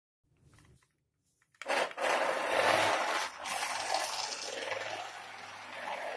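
Toy-grade RC car drifting: its small electric motor whirs and its tyres scrub and hiss as they slide. The sound starts suddenly about one and a half seconds in.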